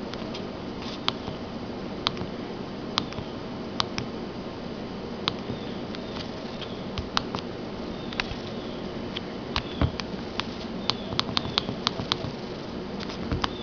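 Motorola mobile phone keypad buttons being pressed: sharp, irregular clicks, coming faster in the second half, as someone scrolls through messages and menus, over a steady low hum.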